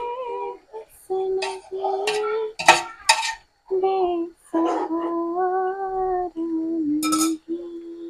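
Metal tongs clanking and scraping against a large aluminium pot as raw chicken pieces are turned, with the sharpest clanks about two and a half and three seconds in and again near seven seconds. Underneath, a melodic tune of long held notes plays.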